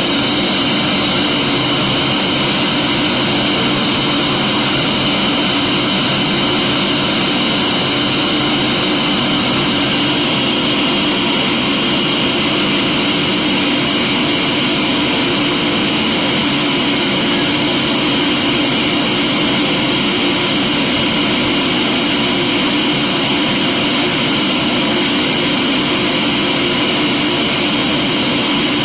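Vacuum cleaner running steadily, a constant loud whine over a rushing hiss.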